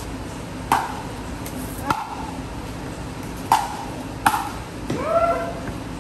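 Pickleball paddles striking the plastic ball in a quick rally: four sharp pocks, the last two close together. About five seconds in, a player gives a short rising exclamation as the point ends.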